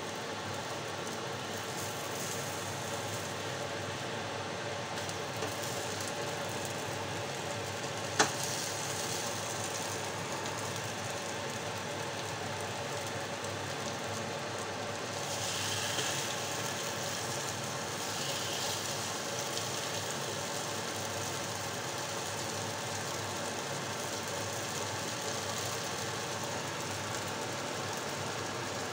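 Carrot pancake batter frying in margarine in a hot pan, with a steady sizzle. One sharp knock comes about eight seconds in. The sizzle brightens for a few seconds around the middle, when the pancake is turned with the spatula.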